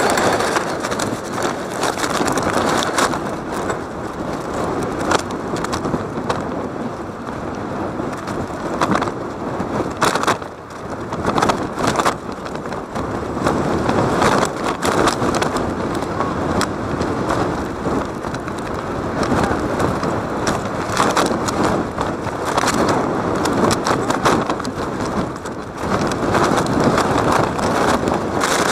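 Ambient noise of a live college game: a steady murmur from the crowd and the players, broken by scattered sharp knocks from the play.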